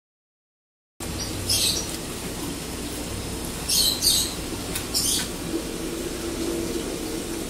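Steady low hum of an aquarium's air-driven sponge filter running, starting about a second in, with four short high-pitched chirpy sounds over it.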